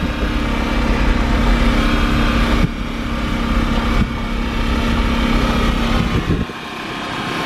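Steady low rumble of a 1979 Chevy C10 being towed on a dirt road: road and wind noise in the open, windshield-less cab, with the towing side-by-side UTV's engine droning ahead. The rumble eases near the end.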